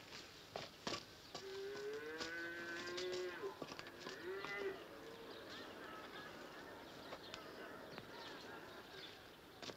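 Cattle mooing: a long drawn-out moo begins about a second and a half in, followed by a shorter one about four seconds in and fainter calls after. Two sharp knocks come about a second in.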